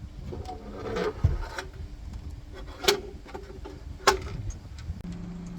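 Three sharp clicks or knocks over a low rumble, with a steady low hum starting near the end.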